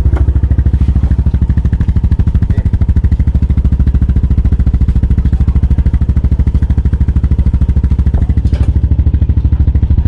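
Yamaha Aerox scooter's single-cylinder engine idling steadily, with an even low pulsing.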